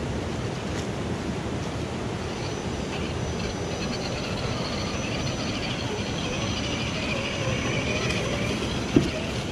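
Gmade GS02F Buffalo 1/10-scale RC crawler driving through a shallow creek: a steady whir from its motor and gears, with a faint whine that wavers in pitch and a short knock near the end.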